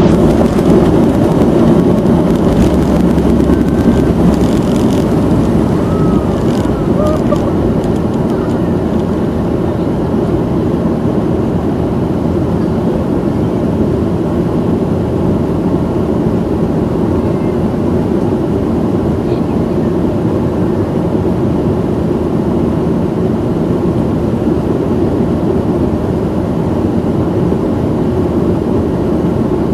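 Boeing 737-800 CFM56-7B jet engines at takeoff thrust, heard inside the passenger cabin as a loud, steady rumble of engine and air noise that eases slightly over the first several seconds and then holds level during the climb.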